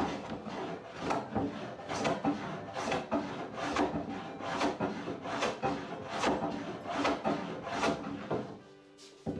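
Wooden door being sanded by hand, sandpaper rubbing back and forth in steady strokes about twice a second, stopping shortly before the end.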